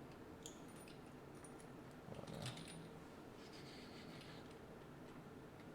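Faint small metal clicks and clinks, with one soft knock about two and a half seconds in, as bicycle wheel and hub parts are handled and refitted.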